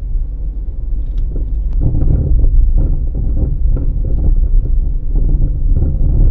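Nissan Almera G15 driving over rough unpaved ground: a steady low rumble with repeated, irregular knocks from the car. This is the knock whose source the owner is trying to find.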